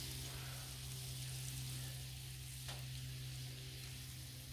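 Shrimp and chicken broth sizzling steadily on a hot Blackstone flat-top griddle and in small cast iron dishes, with a steady low hum underneath.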